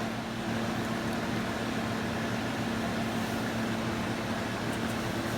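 Steady, even mechanical hum with a low held tone, like a fan or air conditioner running.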